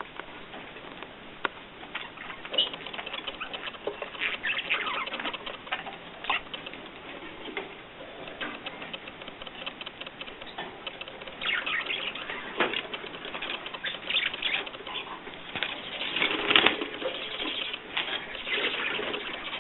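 Birds flapping their wings and moving about, with many scattered taps, clicks and rustles, busiest in the second half.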